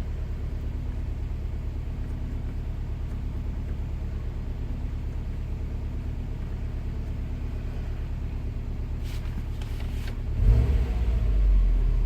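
2017 Subaru WRX STI's turbocharged flat-four engine idling, heard as a steady low rumble with an even pulse, swelling louder for about two seconds near the end.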